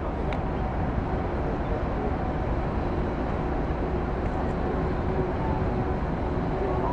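Steady rumbling background noise on the open deck of a cruise ship under way, with a faint steady hum running through it.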